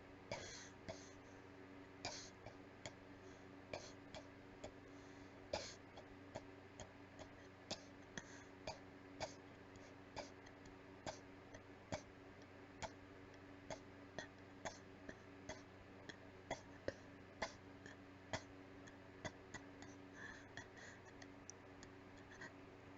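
A person's weak, breathy little coughs, short and irregular, roughly one a second, over a faint steady hum.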